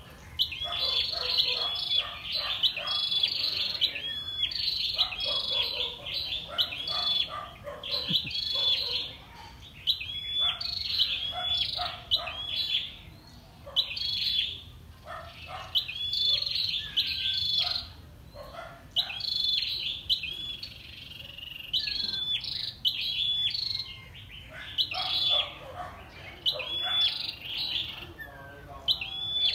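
Caged female flowerpecker calling hard: short high chirps in quick runs of two to four, repeated over and over with brief pauses, with fainter lower chirps beneath.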